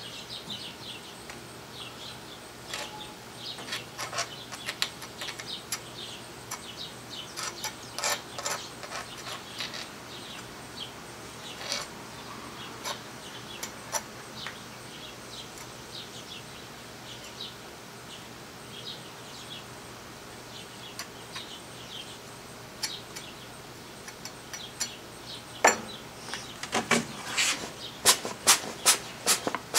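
Molder's spoon tool scraping and picking at rammed green molding sand around a casting pattern, cutting the sand down to the parting line: a scatter of light scratches and clicks. Near the end the strokes come faster and louder as the loose sand is cleared off the mold.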